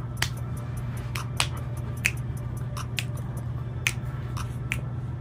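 Irregular short wet mouth smacks and clicks, about two a second, from a dog licking close to a person's face or from kissy noises made at it, over a steady low hum.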